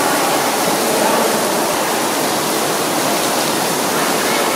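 Dense artificial rain pouring from a ceiling grid of nozzles and splashing down, a steady, even rush of falling water.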